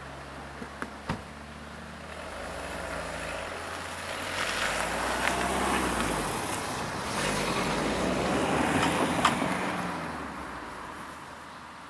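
A road vehicle passing close by: its sound swells over several seconds, peaks, then fades away with a falling pitch. Three light clicks about a second in.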